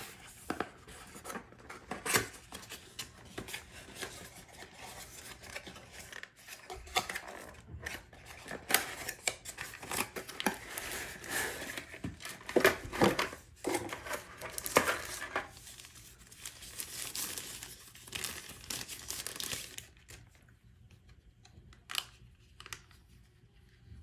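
Cardboard retail box and its packaging handled by hand during unboxing: the box being opened, packaging scraping and crinkling, with irregular clicks and taps. The handling is busiest through the middle and thins to a few taps near the end.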